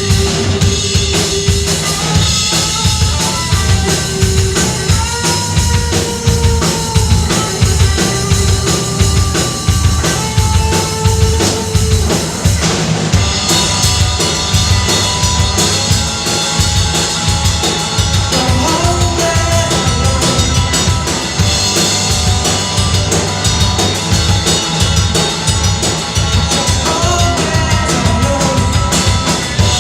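Rock band playing live: a full drum kit keeps a steady beat with bass drum, and held, sliding melody notes run over it.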